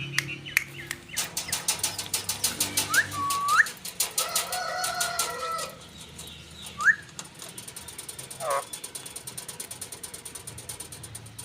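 Pet parrot whistling and calling: several short rising whistles, one longer held call and a brief falling call, among runs of rapid clicks.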